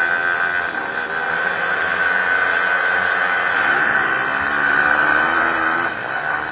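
A pack of pit bike engines revving together, many engines overlapping with pitches rising and falling.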